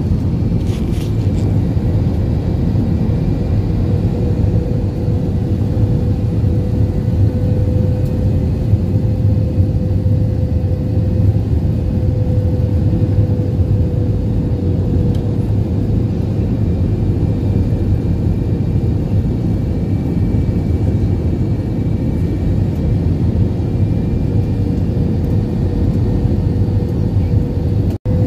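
Jet airliner cabin noise heard from a window seat over the wing while descending to land: a loud, steady low rumble of engines and airflow with a steady hum above it. The sound cuts out for an instant near the end.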